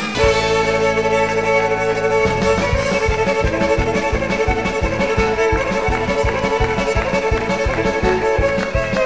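Fiddle playing a tune over band accompaniment. It opens on held low notes for about two seconds, then a steady drum beat comes in.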